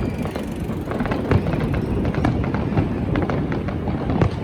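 Fireworks display going off: an irregular run of sharp cracks and bangs over a steady low rumble.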